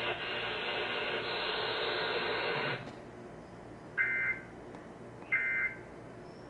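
A steady hiss that cuts off abruptly about three seconds in, followed by three short screechy two-tone data bursts about a second and a third apart. These are the Emergency Alert System's end-of-message (EOM) SAME code bursts, which signal that the alert has ended.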